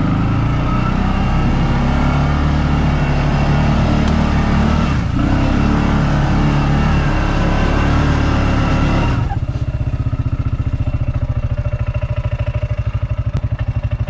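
CFMoto ZForce 500 UTV engine running hard at high revs under load on an off-road climb, its pitch shifting. About nine seconds in it drops suddenly to a steady, evenly pulsing idle.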